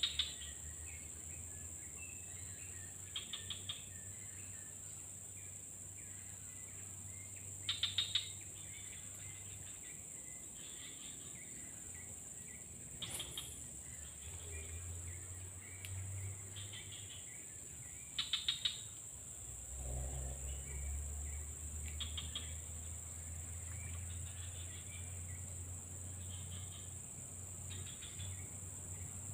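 Steady high-pitched insect buzz with short, rapid trills every few seconds and soft bird twittering: a tropical insect and bird chorus.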